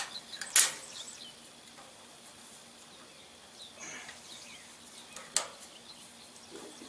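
Plastic spiral hose wrap being twisted onto a hydraulic hose by hand, giving a few sharp plastic clicks and rustles: the loudest comes about half a second in, another about five seconds in. Faint bird chirps sound in the background.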